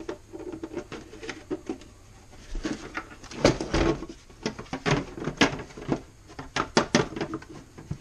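Plastic housing parts of a GE canister vacuum cleaner being handled and fitted back together: scattered clicks, knocks and rubbing. The loudest knocks come about halfway through, and a few sharp clicks follow near the end.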